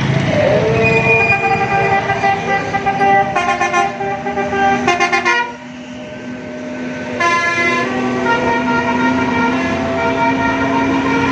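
A bus's telolet musical air horn playing a tune of changing multi-tone notes, with a few short, louder horn blasts. A low engine and traffic rumble runs underneath.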